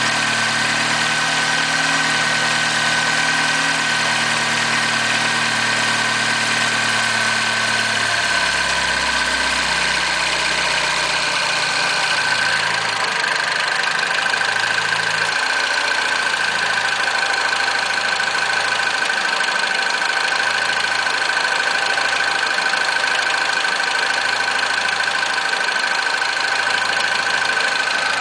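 Peugeot RCZ's 1.6 THP 200 turbocharged four-cylinder idling after a cold start, with a steady high whine over it. The deep engine note shifts and drops away about ten seconds in.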